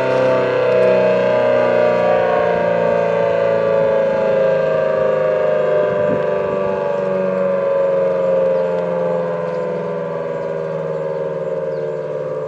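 Federal Model 5T outdoor warning siren sounding during its test, one loud steady wail whose pitch slides slowly downward while the level eases slightly.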